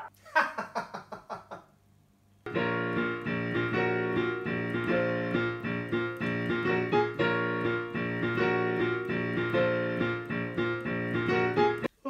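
Yamaha digital piano being played, a run of notes and chords that starts about two and a half seconds in and cuts off suddenly near the end. It is preceded by a brief run of quick pulsed sounds.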